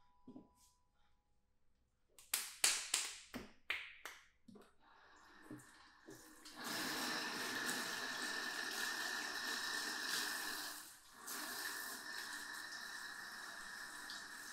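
A few sharp knocks, then water starts running steadily, as from a tap or spray head, with a brief break about eleven seconds in.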